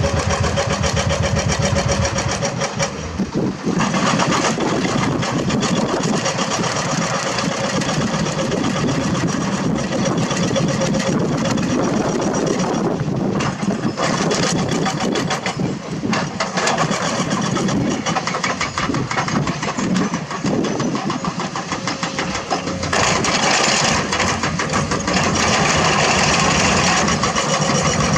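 Diesel engines of a hydraulic excavator and dump trucks running continuously as the excavator digs and loads dirt and rock.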